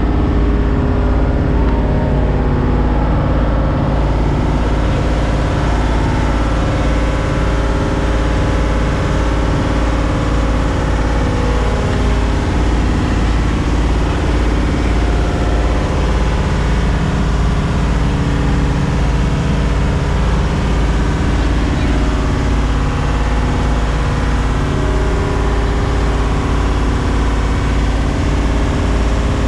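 Bumboat engine running steadily under way with an even low throb, heard from inside the boat's wooden cabin.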